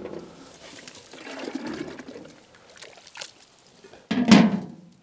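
Hot water in a large steaming pan over a wood fire, sloshing and trickling as the lid is lifted off, with one louder thump a little after four seconds in.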